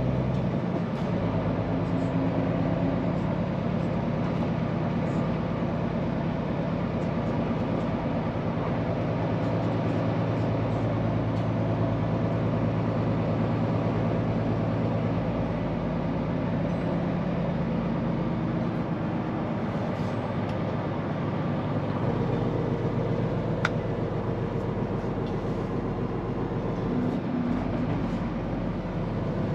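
Scania P410 truck's diesel engine running while driving, with road and cab noise. The engine note shifts a few times as its speed changes, and there is a single sharp click about three-quarters of the way through.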